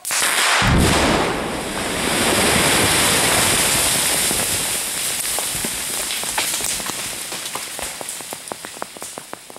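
Rock blast in ledge: a sudden loud detonation with a deep boom, followed by a long rush of debris. From about five seconds in, many separate clicks of stones and gravel falling back onto the road and through the trees, thinning toward the end.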